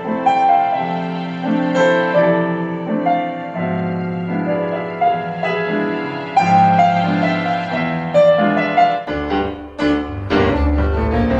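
Recorded tango music: a piano playing a melody over sustained chords, with a few sharp, heavy accents and a swell in the low end near the end.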